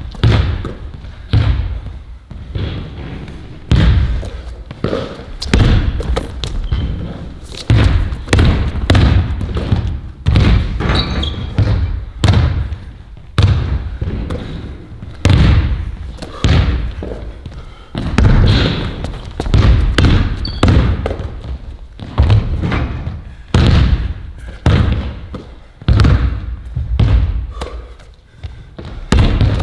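A ball bounced over and over on a hard floor, irregular thuds roughly one or two a second, each with a short echo.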